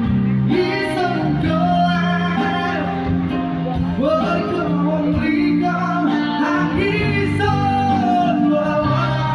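Band music with a singer's voice: a gliding sung melody over sustained instrumental backing.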